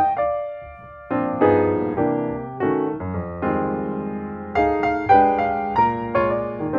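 Background piano music: chords and melody notes struck and left to fade, thinning out briefly just after the start and picking up again about a second in.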